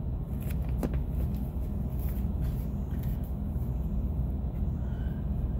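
Steady low rumble of an idling vehicle engine, heard from inside the cab.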